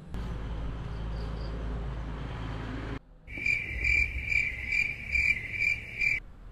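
A low, steady rumble of background noise for about three seconds, which cuts out; then a cricket chirps steadily in even pulses, two or three a second, for about three seconds before stopping abruptly.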